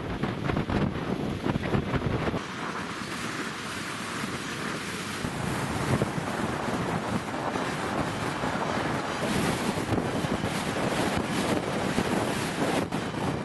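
Hurricane-force wind gusting on the microphone over the rush of storm-surge floodwater and rain. A deep gusting rumble eases a little over two seconds in, leaving a steadier hiss.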